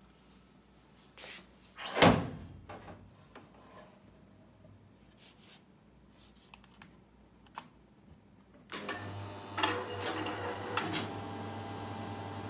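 A heavy thunk about two seconds in, then a few faint clicks. About nine seconds in, the IBM System/36 5360 minicomputer powers up: its cooling fans and a steady low hum come on suddenly, with a few clicks and knocks as it starts.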